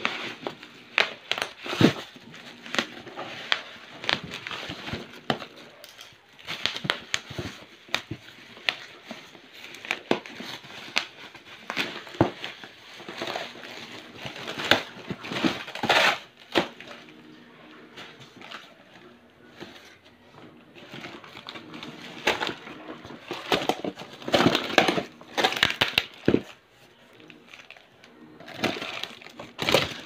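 Clear plastic stretch wrap and cardboard crinkling, crackling and rustling in irregular bursts as a wrapped box is handled and torn open.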